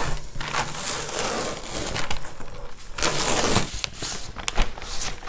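Paper release backing crinkling and rustling as it is peeled off the adhesive back of a 3D foam brick wall panel, with the foam being pressed and rubbed onto the wall.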